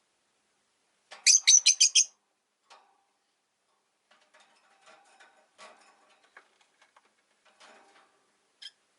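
Rosy-faced lovebird giving a quick run of about six loud, high chirps about a second in, then faint scratching and small clicks, and one short chirp near the end.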